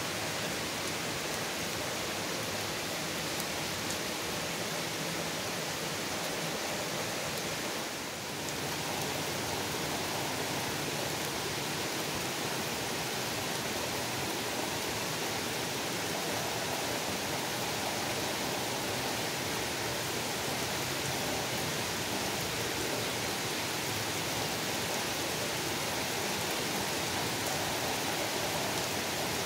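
Steady heavy rain falling on trees, an even hiss with no let-up.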